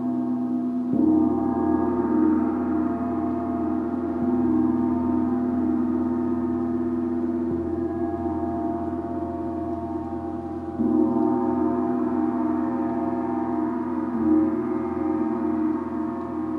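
Gong sounding in long, sustained, shimmering tones with many overtones, swelling up again about a second in and again about eleven seconds in.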